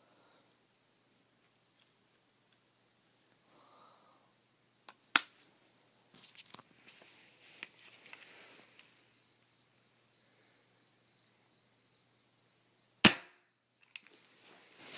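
Pellet gun firing a nail or small spear: one sharp crack about thirteen seconds in, the loudest sound, after a smaller sharp click about five seconds in. A faint high chirping repeats evenly underneath.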